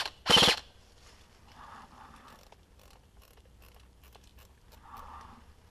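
A G&G M4 airsoft electric gun firing two short bursts in quick succession right at the start, followed by faint rustling and crunching in dry leaves.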